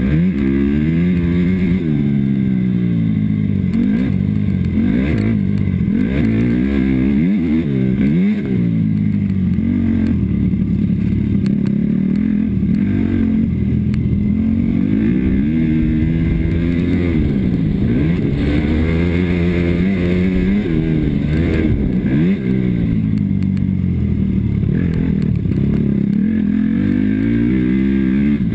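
Motocross bike's engine being raced hard: the revs climb and fall back again and again every few seconds as the rider accelerates and backs off through the track.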